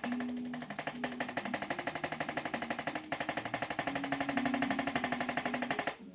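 A rapid, even train of sharp taps, about nine a second, that starts suddenly, breaks off briefly about three seconds in and stops near the end, over background music.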